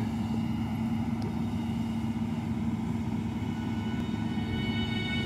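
Combine harvester working, with a tractor running alongside: a steady, unchanging engine drone with a constant hum.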